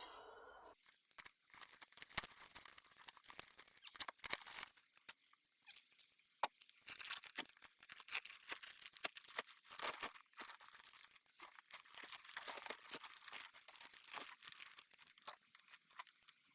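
Plastic sheeting being handled, faint irregular crinkling and rustling with scattered crackles.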